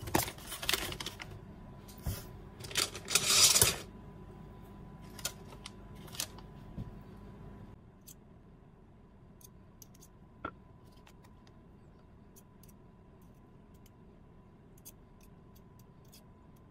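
Paper butter wrapper rustling and crinkling in a few loud bursts over the first four seconds, then light clinks and taps of a metal fork and spoon cutting pats of butter and scraping them onto a baking dish.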